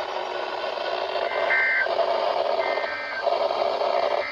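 NOAA Weather Radio SAME end-of-message data: three short two-tone digital bursts, each under a second and spaced about a second and a half apart, heard over the steady hiss of the radio receiver.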